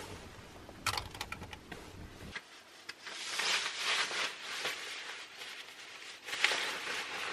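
Rustling of fabric and bedding with a few light clicks and knocks as things are handled and the camera is moved about. A cluster of clicks comes about a second in, then longer rustles in the middle and near the end.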